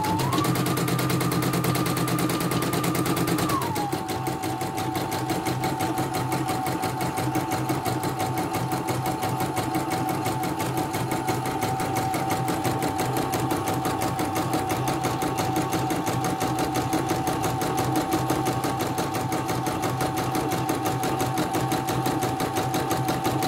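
CNY portable embroidery machine stitching a design, its motor running with a fast, even needle rhythm. The motor speeds up just after the start and settles back to a slightly lower steady pitch about four seconds in.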